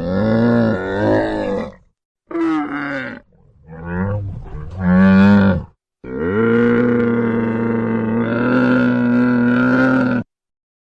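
Camel calling: four loud, pitched calls in a row, the first three short and wavering, the last a long steady call of about four seconds.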